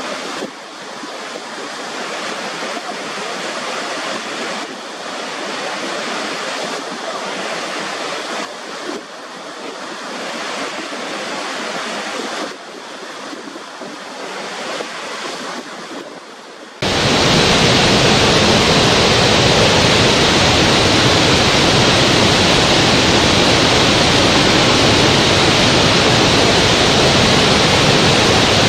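Water rushing over the brink of Niagara's Horseshoe Falls, a steady hiss with little deep bass. About 17 seconds in it changes abruptly to a louder, steadier and deeper roar of falling water.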